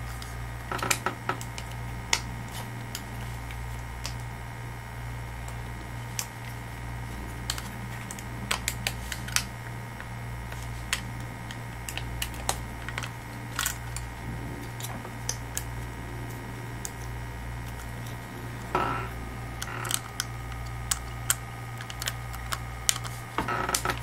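Scattered light clicks and taps of clear acrylic case parts being handled and fitted, a small cluster near the end, over a steady low hum.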